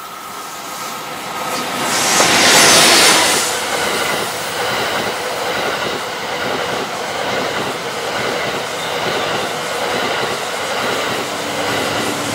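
EF81 electric locomotive passing close at speed, loudest about two to three seconds in, followed by a long rake of E26 sleeper coaches rolling steadily past on the rails.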